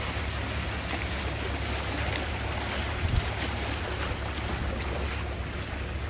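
Calm sea waves washing steadily, with wind buffeting the microphone as a constant low rumble and a brief bump about three seconds in.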